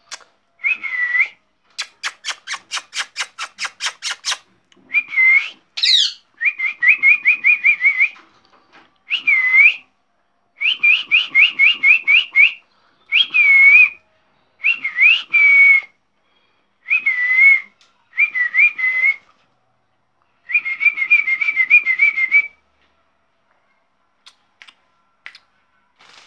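Pet parrot whistling in short repeated phrases, some warbled, some swooping down and up, with a sharp high squeak about six seconds in. A rapid run of clicks comes about two seconds in.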